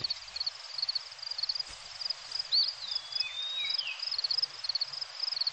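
Crickets chirping in a steady fast rhythm, about four to five high chirps a second, over a hiss of outdoor ambience. A brief high whistle slides down in pitch about halfway through.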